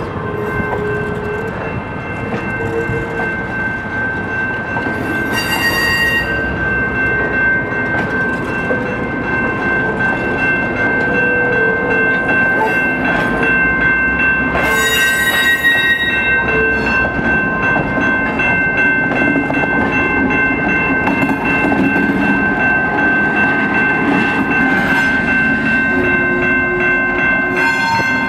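Passenger cars of a slowly moving train rolling over a grade crossing, with wheel clatter and two brief high wheel squeals, under the steady ringing of the crossing signal bell. In the last few seconds the low engine sound of the EMD GP9 diesel locomotive pushing at the rear grows louder as it comes up.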